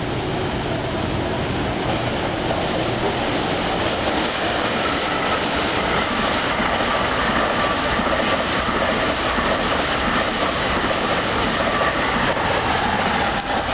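New Jersey Transit Multi-Level double-deck passenger train passing close by: a steady, loud rush and rumble of wheels on rail with some clickety-clack.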